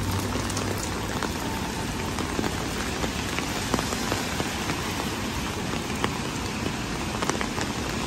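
Steady rain falling on wet pavement, with many individual drops striking close by in sharp ticks.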